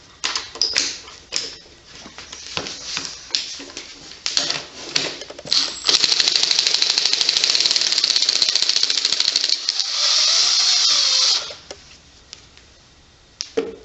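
Metal tools and engine parts clinking and knocking, then a ratchet wrench clicking fast for about four seconds and running faster and smoother for a second and a half more, as a coolant drain bolt is backed out of the engine.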